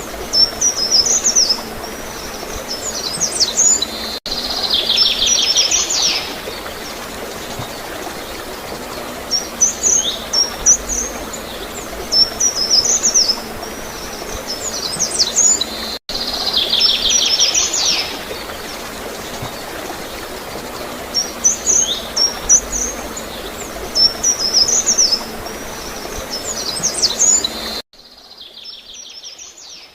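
Small birds chirping and twittering in short high phrases over a steady gurgle of flowing water, with a fast trill twice. The same phrases come round again about every twelve seconds, and near the end everything drops abruptly to a much quieter level.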